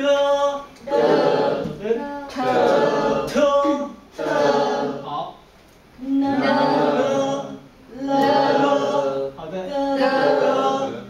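Voices chanting Mandarin practice syllables together, about eight drawn-out syllables in a row with short pauses between them, sounding closer to a chant than to talk.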